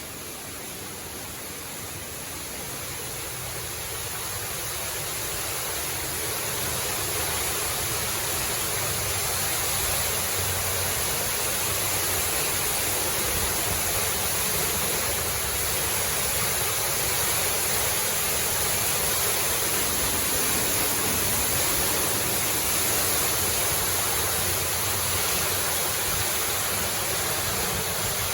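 Waterfall's falling water, a steady rush that grows louder over the first several seconds and then holds level.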